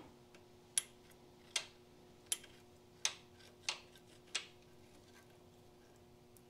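A thin steel probing tool clicking against metal inside a shift-rail detent bore of a tractor transmission case while the detent springs are fished out. Six light, sharp clicks come a little under a second apart and stop about two-thirds of the way through.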